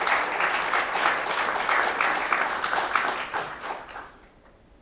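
Audience applauding, many hands clapping, then dying away about four seconds in.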